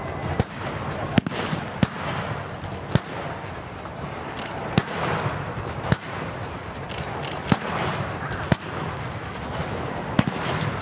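Sharp single bangs of demonstration artillery and blank fire, about ten of them, unevenly spaced a second or two apart, over a steady background rush.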